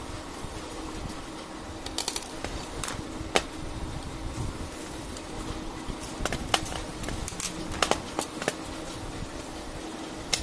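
Scattered clicks and taps of plastic and metal as an HP LaserJet 4515 fuser unit is handled and worked on with a screwdriver. A steady low hum runs underneath.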